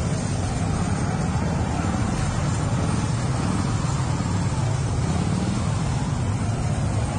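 Steady vehicle engine and road noise, a constant low rumble with no shots or blasts.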